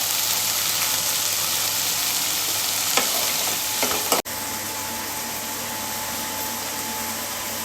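Chopped vegetables and paneer sizzling in a kadhai with a little oil, with a few short knocks of stirring about 3 to 4 seconds in. A kitchen exhaust fan is running underneath.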